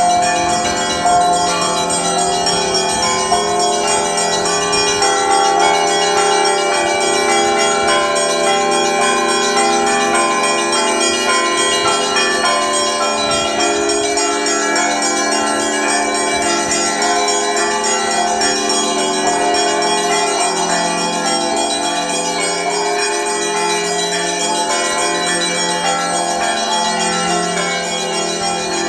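Russian Orthodox church bells ringing: several bells of different pitches struck in a continuous rhythmic peal, their tones overlapping and ringing on. A deep bell sounds in a steady beat underneath.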